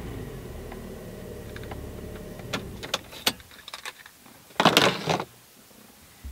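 A 2004 Mazda RX-8's 13B Renesis rotary engine is running and then switched off, its hum dying away a few seconds in with a few clicks as the key is turned. About a second later comes a brief, loud clatter of handling noise, the loudest sound here.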